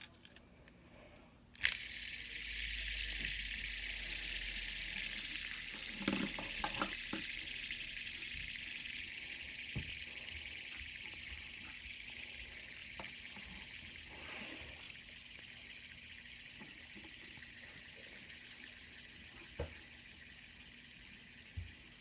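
A fidget spinner is flicked into a spin a couple of seconds in, then spins on with a steady hissing whir that slowly fades. There are a few light knocks along the way.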